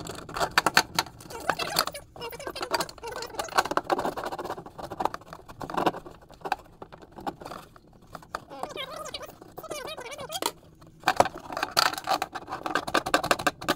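Socket wrench on the tail light nuts behind the trunk trim: many small irregular metal clicks and rattles, with rustling of the trunk carpet and panels as the socket is worked in.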